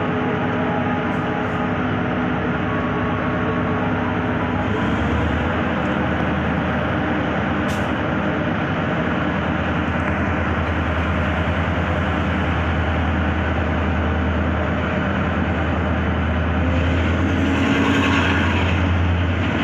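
Passenger train pulling slowly away from a halt, heard from the carriage window: a steady rumble of wheels and running gear, with a low hum that grows stronger about five seconds in and louder again near the end. One sharp click about eight seconds in.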